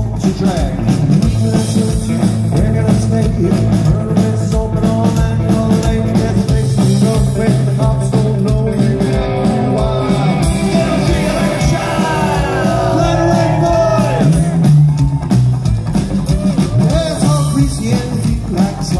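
Rockabilly trio playing live over a large festival sound system: electric guitar, upright bass and drums, with singing, at a steady driving beat.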